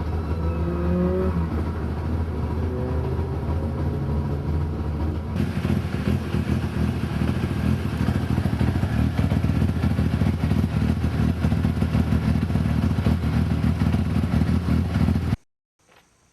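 Toyota AE85 Sprinter Trueno's four-cylinder engine running through a Trust exhaust that is rusted through with holes. A few faint whining tones glide up and down in the first two seconds. About five seconds in the sound gets louder and harsher, then stops abruptly shortly before the end.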